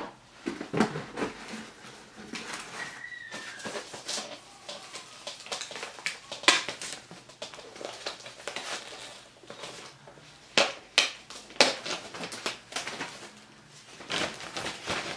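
Protective packaging wrapper crinkling and rustling in irregular bursts as a wrapped item is pulled out of a cardboard box, with cardboard scraping and light knocks. The loudest crackles come about six seconds in and again around ten to twelve seconds in.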